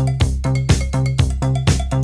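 Upbeat electronic dance music with a steady beat of about two strong hits a second over a deep bass line.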